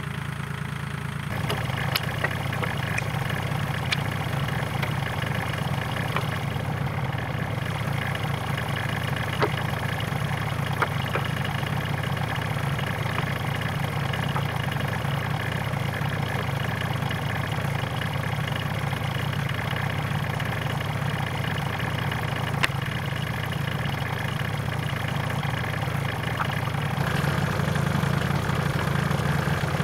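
Compact tractor engine idling steadily, with a few sharp knocks scattered through it as sawn boards are handled and stacked.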